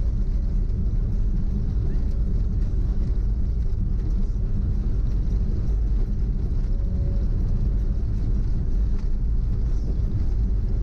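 Steady low rumble of a car driving: engine and road noise, even throughout.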